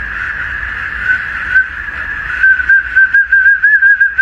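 A German Shepherd blowing a small metal whistle held in its mouth: one long, loud, high whistle tone that breaks into a rapid warble about halfway through.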